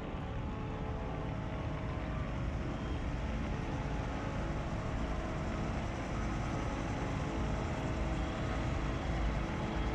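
Diesel engines of heavy mining machinery, an excavator and an articulated dump truck, running in a steady low rumble that grows slowly louder.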